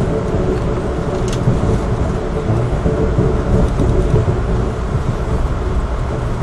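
Steady rumble of an Amtrak passenger train running on the rails, heard from inside the car, with one faint brief tick about a second in.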